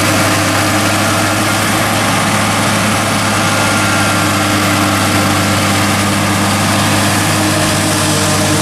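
John Deere 4055 tractor's six-cylinder diesel running steadily under load, driving a New Holland FP230 pull-type forage harvester through the PTO as it chops standing corn for silage. The harvester's cutterhead and blower add a constant rushing noise over the engine hum.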